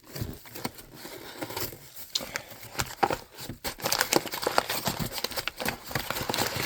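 Packaging being handled and unwrapped: irregular crinkling and crackling, busier and louder in the second half.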